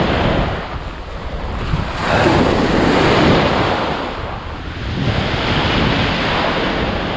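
Ocean surf breaking and washing up over the shoreline, rising and falling with each wave, the loudest swell about two to three seconds in. Wind buffets the microphone underneath.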